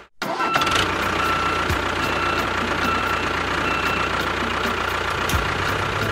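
A small motor running steadily, with a thin high whine over a low hum.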